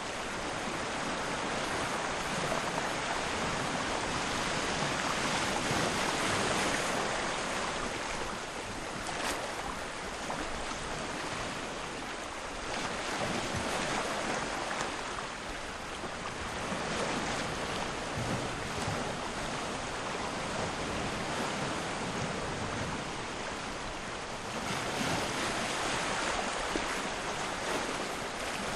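Sea waves washing gently onto the shore at low tide, a steady rushing that swells and fades every few seconds.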